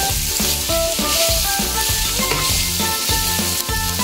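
Pork pieces sizzling as they fry in a pan with dark soy sauce, a steady frying hiss, under background music made of short melodic notes over a bass line.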